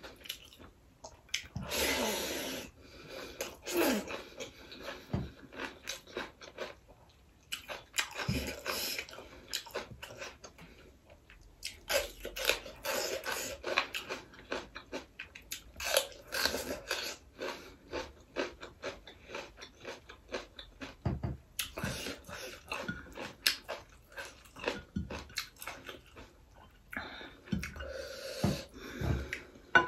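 Close-up chewing and lip-smacking of a person eating rice and greens by hand: wet mouth clicks in quick, irregular runs with a few short pauses.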